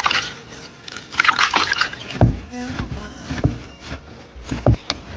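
Food being loaded into a bamboo tube for bamboo-tube rice: a rustling, pouring hiss, then a few knocks and taps, the loudest near the end.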